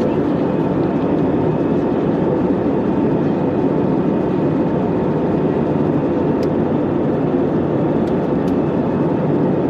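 Steady in-flight cabin noise of an Airbus A319 heard from a window seat by the wing: the even drone of the jet engines and the rush of air past the fuselage. A few faint clicks come in the second half.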